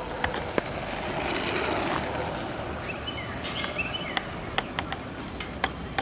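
Outdoor road ambience: a broad swell of traffic-like noise about a second in, with scattered sharp clicks and a few short high chirps.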